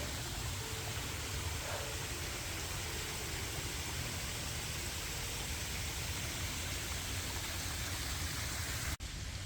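Steady rushing of falling water from a waterfall, even and unbroken, cutting off abruptly just before the end.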